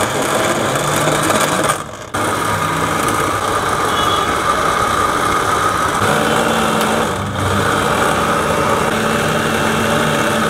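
Electric blender motor running at full speed, churning banana, papaya, sugar and milk powder into a thick mixed-fruit drink. The motor cuts out for a moment about two seconds in and starts again, with a brief dip a little past the middle.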